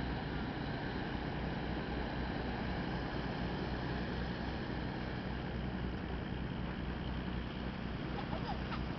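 Engine of a large river cargo barge passing close by: a low, even pulsing under a constant hiss.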